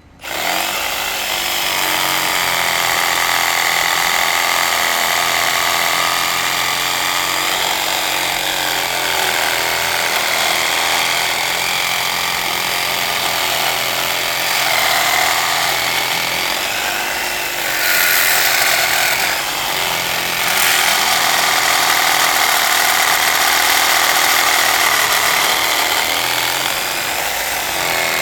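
Sawzall reciprocating saw cutting through a cast iron sewer cleanout pipe, starting abruptly and running steadily with a shifting whine as the blade works the metal, briefly dipping and changing about two-thirds of the way through.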